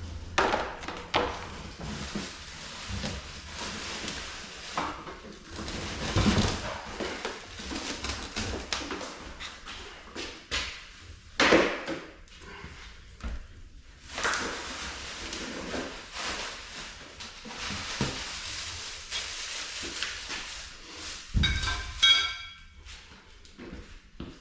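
Objects being handled and moved about: irregular knocks, clatter and rustling, with a short high squeak near the end.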